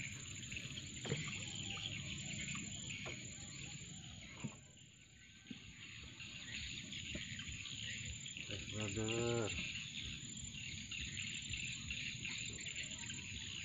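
Steady chorus of insects, crickets or the like, as a high hiss throughout. About two-thirds of the way through, a short low call rises in pitch and is the loudest thing heard.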